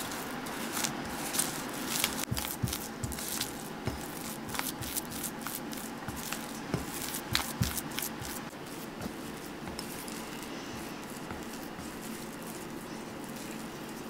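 Silicone spatula stirring thick cocoa-and-water paste in a glass bowl: wet squishing with quick scrapes and taps against the glass. The stirring sounds thin out about two-thirds of the way in, leaving a faint steady hum.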